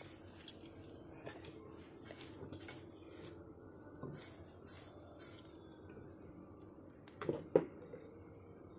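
Light, scattered clicks of small freshwater snail shells knocking together as a hand picks through the pile, with two louder, sharper clinks a little after seven seconds in.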